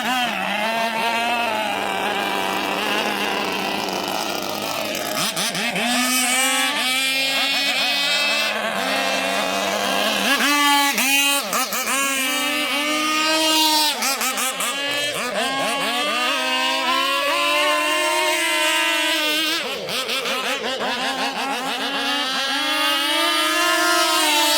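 Radio-controlled boat's Zenoah two-stroke engine running hard, with a high buzzing note that rises and falls in pitch again and again as the throttle changes and the boat passes.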